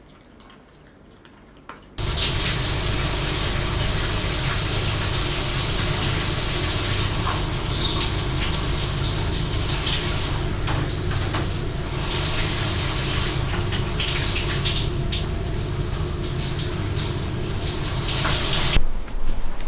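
Water running steadily in a bathroom, with small irregular splashes in it. It starts suddenly about two seconds in and cuts off suddenly near the end.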